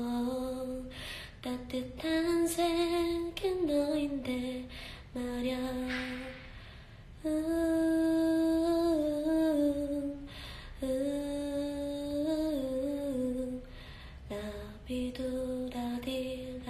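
A young woman singing a slow, gentle ballad of her own composition. The notes are long, held and gliding, with short pauses between phrases.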